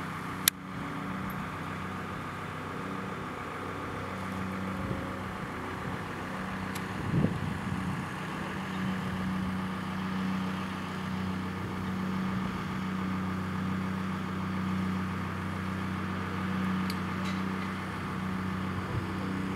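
An engine idling steadily, with a short thump about seven seconds in.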